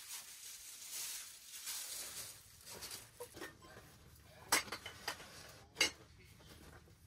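Soft rustling, then a scatter of light clinks and knocks of hard objects being handled while gear is packed up, the two sharpest about four and a half and six seconds in.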